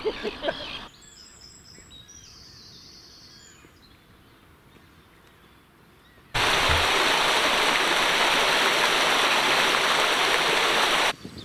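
Water pouring over a small stone weir into a pool: a steady, loud rush that starts abruptly about six seconds in and cuts off just before the end. Before it comes a quiet stretch with faint high bird calls.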